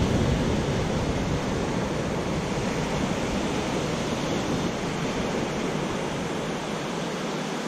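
Ocean surf washing onto the beach, a steady rushing noise that eases slightly toward the end.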